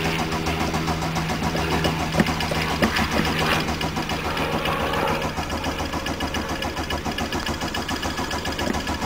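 A 1981 Volkswagen Rabbit's four-cylinder diesel engine running with a fast, even clatter just after a cold start. The sound eases slightly about five seconds in.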